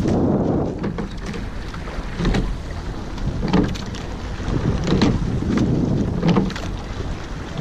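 Rowing strokes in a sweep-oared eight: the oars knock in their oarlocks with a splash at each stroke, regular knocks a little over a second apart, over steady wind buffeting the microphone.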